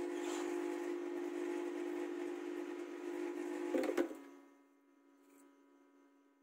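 Hot-air rework station blowing: a steady whine with an airy hiss. It cuts off with a click about four seconds in and fades to a faint hum.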